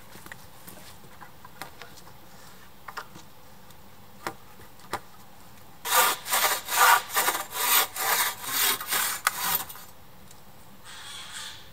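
Bow saw cutting through the top of a wooden shelter pole in quick back-and-forth strokes, about three a second, starting about halfway through and lasting roughly four seconds. Before the sawing there are only a few light knocks of wood.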